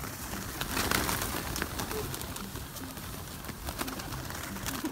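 A large flock of feral pigeons feeding on the ground: a busy patter of wingbeats and scuffling, with some cooing.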